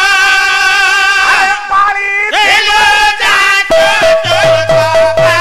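Odia pala music: a sung melody over sustained, wavering instrumental notes. Regular drum strokes join about two-thirds of the way through.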